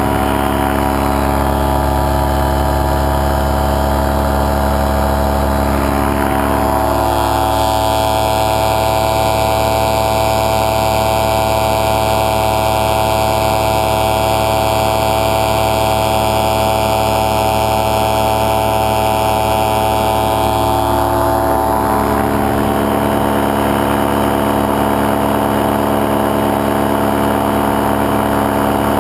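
Paramotor engine and propeller running steadily in flight, a loud continuous drone. The note changes about a quarter of the way in and changes back about three-quarters of the way through.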